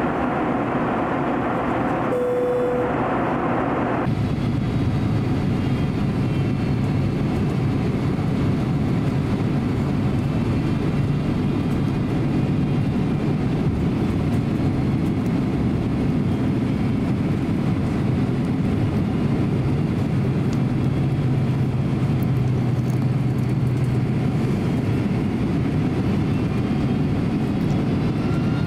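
Steady cabin noise inside a Boeing 767-300 airliner descending on approach: the rush of engines and airflow. A brief single-note tone sounds about two seconds in. Soon after, the noise turns deeper, with a low hum.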